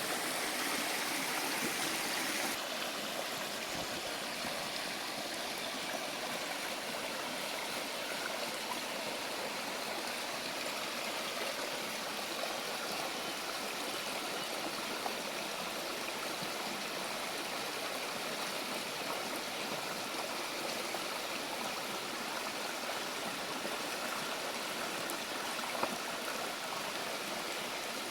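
A stream's flowing water running steadily, a little louder for the first couple of seconds.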